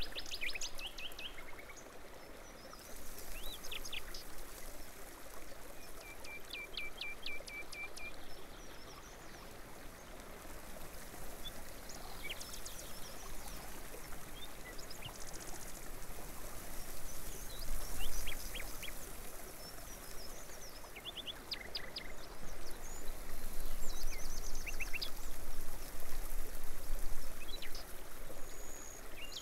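Small birds chirping in short, quick trills over a steady wash of running water.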